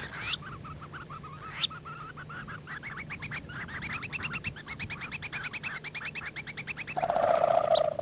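Red phalaropes calling: a long, rapid chatter of short, high, repeated notes that climbs gradually in pitch. About a second before the end a lower steady hum comes in.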